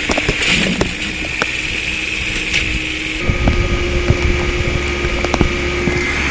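An engine runs under load, pulling a tree stump out by steel cable and pulley. Its low rumble grows about three seconds in, with scattered sharp cracks and pops as the roots tear free of the ground.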